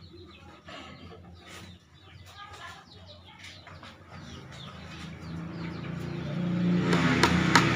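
Birds calling in short clucking and chirping notes. A low hum then builds, and a few sharp knocks come near the end.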